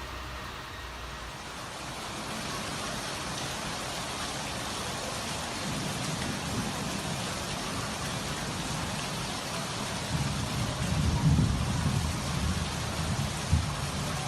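Heavy rain pouring steadily, with a low rumble that grows louder in the second half.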